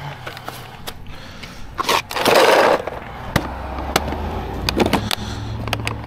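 Handling noise from roadside tire-change equipment: several knocks and clatters, with a loud scraping rush about two seconds in. From about halfway through, a car engine idles as a low, steady hum.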